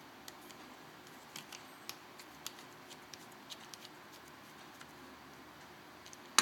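Faint, irregular light clicks and taps from fingers handling a smartphone, about a dozen over several seconds, over a low hiss.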